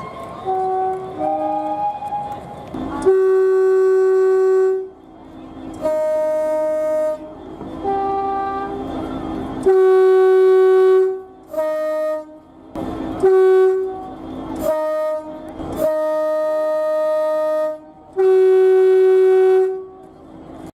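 Train two-tone horn sounding a series of blasts that alternate between a low and a high note, some short and some held for about two seconds, over the rumble of the train.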